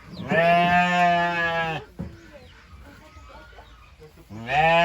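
A farm animal calls twice: two long, steady bleating cries, each about a second and a half long, the first just after the start and the second near the end.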